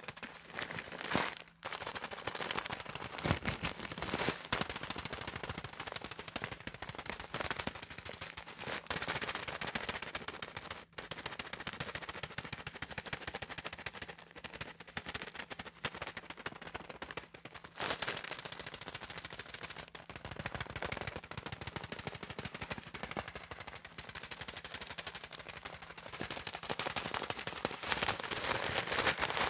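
Comb teeth scraped across sheets of calendar paper: a dense, continuous run of fast clicks and scratches, broken by a few brief pauses.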